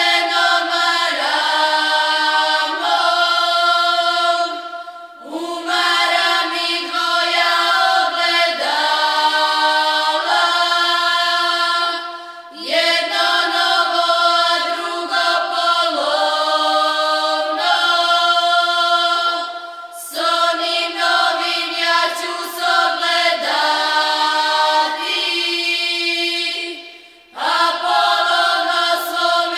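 A group of singers performing a traditional Serbian folk song (izvorna pesma) without accompaniment. The voices hold long, steady notes in phrases of about seven seconds, each ending in a short pause for breath.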